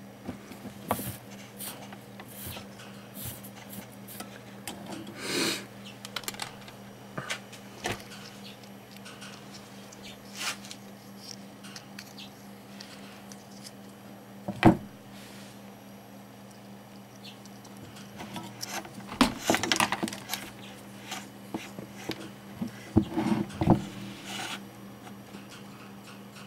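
Workbench handling noise while soldering wires in a helping-hands clamp: scattered clicks, light knocks and rubbing, with one sharp knock about midway and busier clusters in the second half, over a steady low hum.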